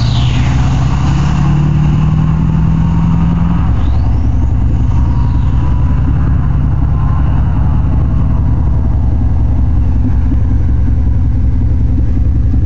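Straight-piped 6.6-litre LLY Duramax V8 turbodiesel running loud and steady, its turbo whistle falling away at the start and rising and falling again about four seconds in.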